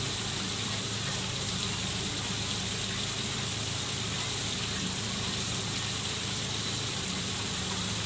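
Small waterfall spilling into a garden pond: a steady, continuous rush of splashing water.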